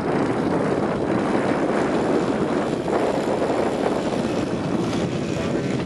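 Zenoah G-62 two-stroke gasoline engine of a large radio-controlled Cessna 182 model, running steadily and turning a three-bladed carbon-fibre propeller.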